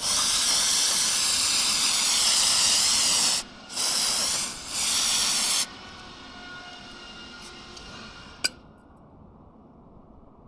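Aerosol parts cleaner spraying in three bursts: a long one of about three and a half seconds, then two short ones. A single sharp click follows a few seconds later.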